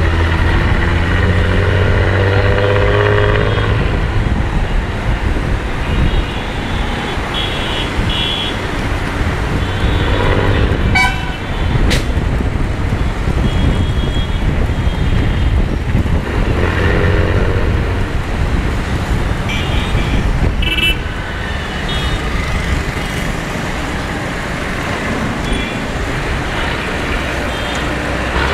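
City road traffic heard from a moving vehicle: a steady engine and road rumble, with vehicle horns tooting several times in short blasts.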